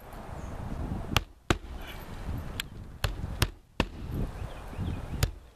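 Claw hammer hand-driving roofing nails through new asphalt shingles into the roof deck: about seven sharp strikes at an uneven pace, some in quick pairs.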